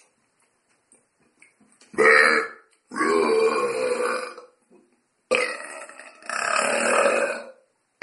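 A person burping loudly three times: a short burp about two seconds in, then two long drawn-out belches, the last one lasting about two seconds.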